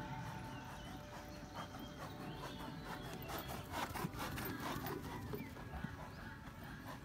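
A dressage horse trotting past close by on sand footing: hoofbeats and the horse's breathing, loudest about four seconds in.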